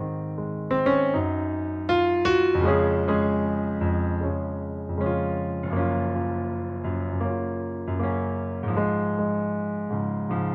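Ballet class piano accompaniment: chords struck in a regular pulse, each ringing and fading before the next.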